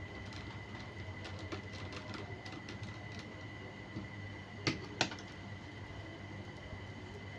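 Small clicks and taps from hands and tools working on an opened laptop, with two sharper clicks close together about two-thirds of the way through, over a steady low hum.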